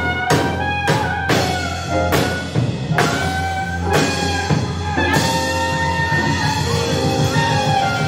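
Band music: a run of loud accented hits with drums, spaced about half a second to a second apart, then sustained chords from about five seconds in.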